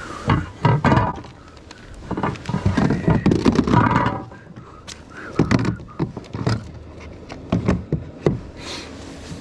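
Irregular knocks, rubbing and scraping against a plastic kayak as a caught bass and a plastic fish-measuring board are handled, in several clusters with short lulls between.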